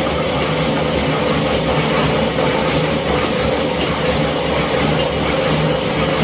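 Plastic crusher machine running steadily with a low hum, with irregular sharp clicks about every half second.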